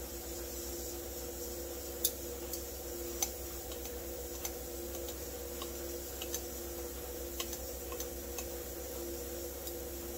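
Light, irregular metal ticks and clicks, about a dozen of them, from a hand tool prying and working a bracket loose on a chainsaw's sheet-metal exhaust pipe. The two loudest come about two and three seconds in, over a steady low hum.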